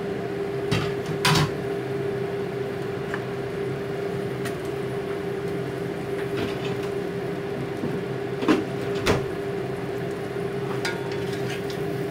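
Steady hum of a running kitchen appliance, with a few short clatters of pots and cooking utensils, the loudest about a second in and a pair about eight and nine seconds in.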